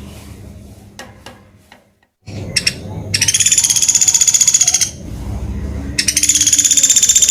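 Pelatuk beras, a small woodpecker, giving two fast, high-pitched rattling trills of nearly two seconds each, the second about three seconds after the first.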